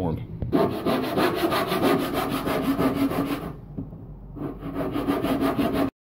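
A saw cutting through an 8-inch cardboard concrete form tube: a dense, fast, even rasping that eases off briefly a little past halfway, picks up again, and cuts off suddenly near the end.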